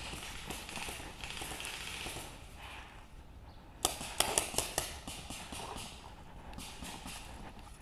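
A quick burst of about six sharp paintball-marker cracks a little under four seconds in, after a stretch of rustling gear and movement.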